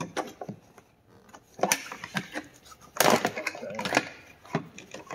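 Plastic LED fog light assembly being pressed into the plastic front bumper opening, its housing and tabs clicking and knocking against the bumper in several short clusters, the loudest about three seconds in, as it snaps into place.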